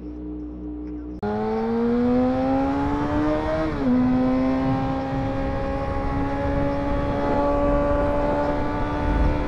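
Motorcycle engine accelerating: its pitch climbs steadily, drops once at an upshift about four seconds in, then pulls on at a near-steady, slowly rising pitch. Before the engine cuts in abruptly, about a second of steady music tones.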